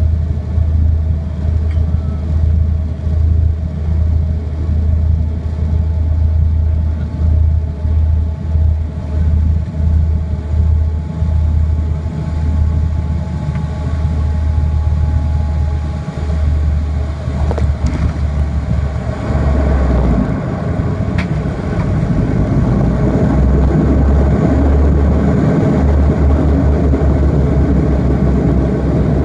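Cabin sound of a Dash 8-300's Pratt & Whitney PW123 turboprops on final approach: a steady, pulsing low propeller drone. Past the middle, after touchdown, it gives way to a louder, broader roar as the propellers go to reverse and slow the aircraft on the runway.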